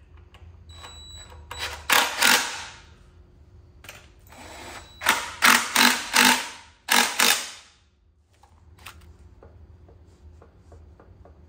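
Cordless impact driver running in the bolts that join a Saginaw three-speed transmission to the engine's bellhousing, in short bursts: two about two seconds in, a quick run of three or four around five to six seconds, and two more about seven seconds in.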